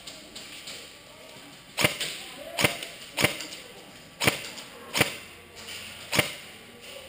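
Airsoft gun firing six sharp single shots, a half-second to a second apart, with a short echo after each.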